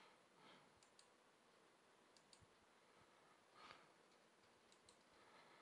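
Near silence with a few faint computer-mouse clicks, some in quick pairs.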